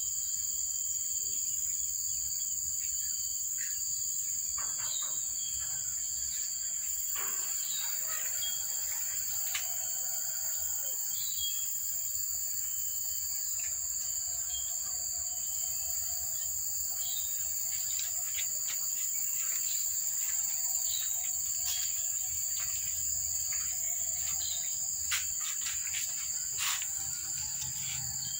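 Steady high-pitched drone of insects, with scattered short bird chirps over it.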